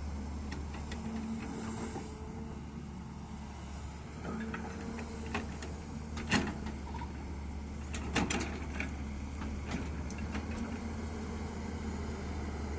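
Hyundai excavator's diesel engine running steadily with a low drone, broken by a few sharp clanks, the loudest about six and eight seconds in.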